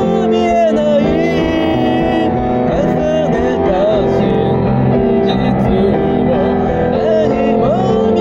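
A singer accompanying themself on acoustic guitar: a sung melody with vibrato over sustained chords.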